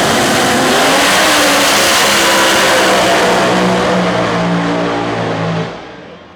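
A Pro Mod drag car's engine runs loud at full throttle. The sound falls away sharply about five and a half seconds in.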